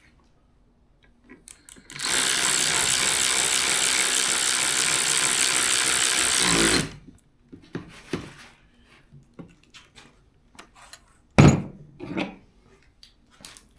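A power drill running steadily for about five seconds, then winding down as it stops. Scattered clicks and one sharp knock follow.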